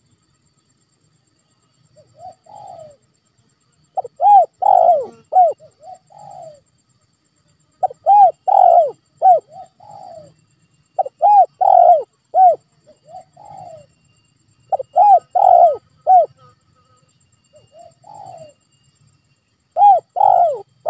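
Spotted dove cooing: phrases of several arched coos, repeated about every three to four seconds, with a fainter short phrase about two seconds in.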